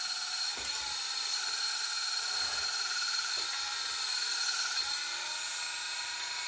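Small electric hydraulic pump of a 1/14-scale RC hydraulic dozer running steadily at its lower speed setting, a constant whine, while the blade is being angled.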